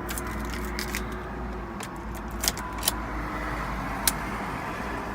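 Chrysler Sebring engine idling steadily, now running after a blown ignition fuse (fuse 20) was replaced to cure a no-crank, no-start fault. A few sharp clicks sound over it.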